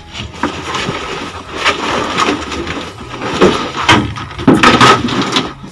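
A detached car headliner panel being handled and dragged inside a bare car body: irregular rustling and scraping, with several louder scrapes or knocks.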